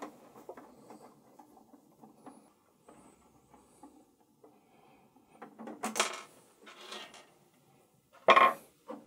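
Clicks and clattering rattles of the Macintosh Color Classic's parts being handled as its logic board is taken out. A few louder scrapes come in the second half, the loudest near the end.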